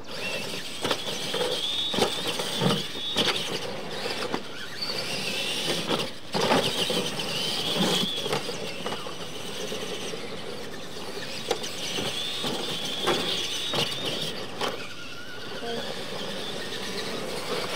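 Two radio-controlled monster trucks racing over a dirt track: their electric motors and gears whine, rising and falling in pitch with the throttle. Repeated thumps and clatters come as the trucks hit the ramps and land.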